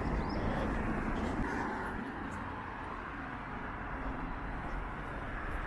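Outdoor street ambience: a steady, even rumble of road traffic.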